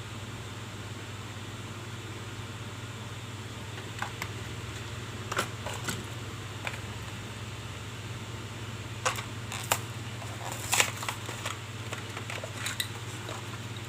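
Hands handling diecast toy-car packaging: an irregular run of sharp clicks and crackles starting about four seconds in, busiest and loudest near the end, over a steady low hum.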